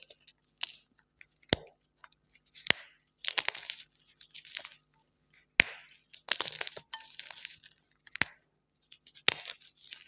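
Blocks of gym chalk being crushed and crumbled by hand: sharp single cracks as pieces snap, between bursts of dry, gritty crunching.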